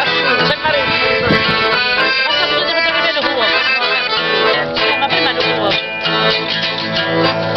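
Piano accordion and acoustic guitar playing a strina, a traditional Calabrian folk song, together.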